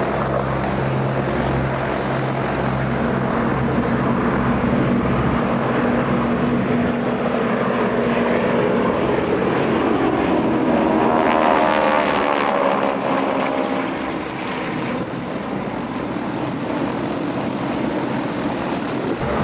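Propeller aircraft engine running as the plane flies past; it grows loudest about twelve seconds in and its note drops in pitch as it passes.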